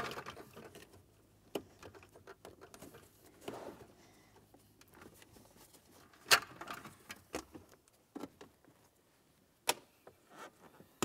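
2004 Nissan Titan's plastic radio bezel being worked loose from the dash by gloved hands: scattered light clicks and rustling of the trim. A sharper snap comes about six seconds in and another near the end, typical of the bezel's push clips letting go.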